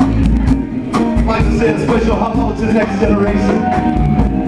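Live band playing: a drum kit keeping a steady beat and bass guitar under a singing voice.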